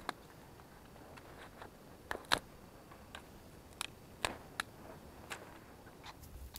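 Dry twigs and deadwood snapping and knocking as firewood is gathered: about a dozen short, sharp cracks at irregular intervals, the loudest a little after two seconds in.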